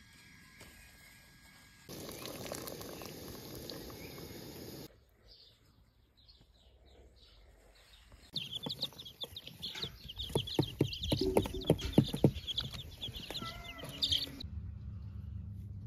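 Several short clips cut together. The loudest is a stretch of baby chicks peeping in quick high chirps, mixed with sharp knocks and taps. Before it there are a few seconds of steady rustling noise, and after it a steady low hum.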